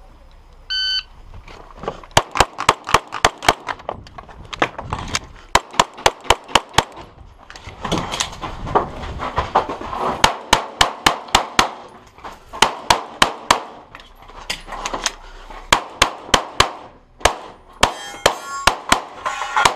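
Shot timer start beep about a second in, then a Glock 34 9mm pistol fired in fast strings of shots, each string several shots long, with short pauses between strings.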